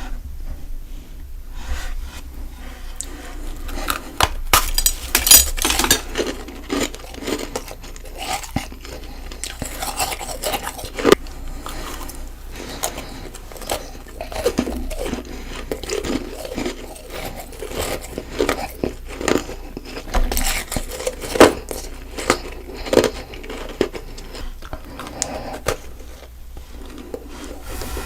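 Close-up crunching of compacted frost snowballs being bitten and chewed. The crackling is dense and irregular, broken by several sharp, louder bites.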